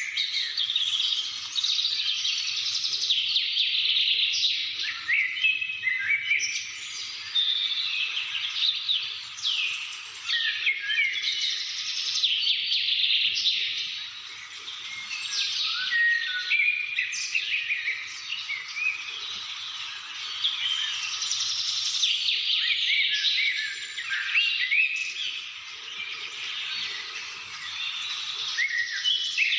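Many small birds singing and chirping at once: a dense chorus of overlapping quick chirps, trills and short falling whistles that swells and dips without a break.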